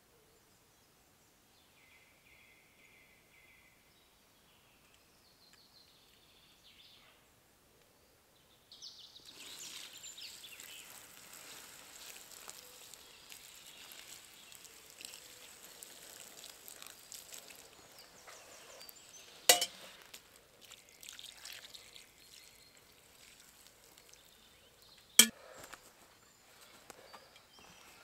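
Water poured from a metal mug onto the hot embers of a campfire, hissing and sizzling as the fire is put out, starting about nine seconds in. Two sharp knocks, the loudest sounds, come a few seconds apart in the second half.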